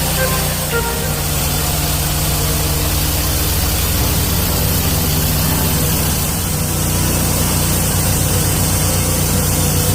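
Norwood LumberMax HD38 portable band sawmill running steadily: an even engine hum with a hiss over it.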